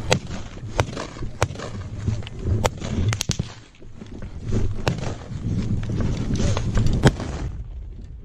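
Small-arms gunfire: about eight sharp single cracks at irregular intervals, the loudest about seven seconds in. Underneath is a low rumble of wind and movement on the helmet-mounted microphone.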